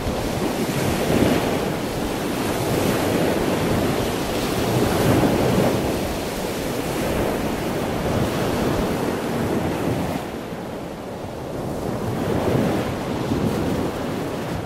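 Sea surf: a steady rushing wash of waves that swells and eases every couple of seconds.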